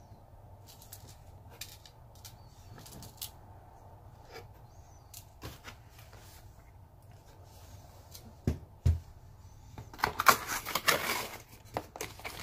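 Unboxing handling: light clicks and taps of a camera body and cardboard packaging, two soft knocks a little past the middle, then a louder burst of rustling packaging near the end as an item is pulled from the box.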